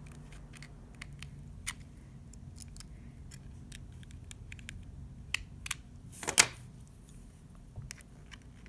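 Small sharp clicks and ticks of tools prying at a phone's internal parts, scattered irregularly, with one louder, longer click about six seconds in, over a low steady hum.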